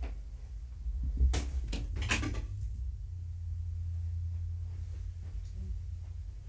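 A sharp knock about a second in, then a short clatter of several knocks around two seconds in, over a steady low rumble.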